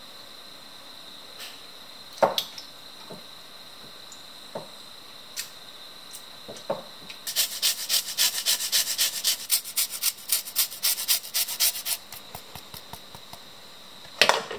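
A lemon being grated on a fine grater over fish fillets: quick rasping strokes, about four to five a second, for some five seconds starting around halfway through. A few sharp knocks come before it, and a loud clunk comes near the end.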